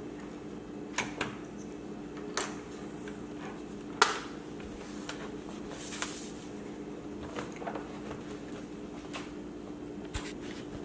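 Scattered clicks and taps of a laptop being handled and taken apart, the loudest about four seconds in and a short hiss near the middle, over a steady low hum.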